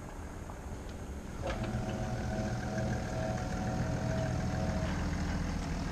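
A BMW car's engine running at low revs as the car pulls slowly out of a driveway; it grows louder about one and a half seconds in and then holds a steady hum.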